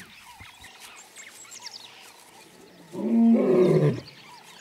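Male lion roaring: one deep roar about three seconds in, rising then falling in pitch over about a second. It is a call announcing his presence in his territory.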